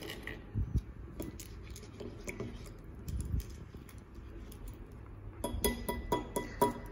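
Crispy pork rinds handled in a ceramic bowl and dipped in vinegar: scattered light crackles and clinks against the bowl, then a quick run of sharp crackling clicks near the end.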